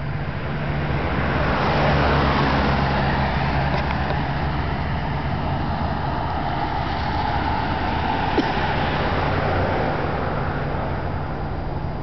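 Diesel engine of an approaching LIRR DM30AC dual-mode locomotive running with a steady low rumble, with a broad swell of noise about two seconds in.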